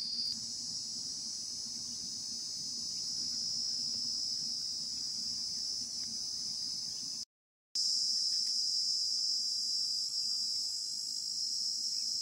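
Steady high-pitched chorus of crickets chirring, broken by a brief dropout about seven seconds in.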